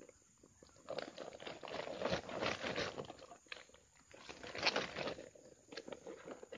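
Plastic bag crinkling and water sloshing as a bag of caught snakehead fish is handled and dipped in swamp water, in two bouts of rustling with sharp crackles.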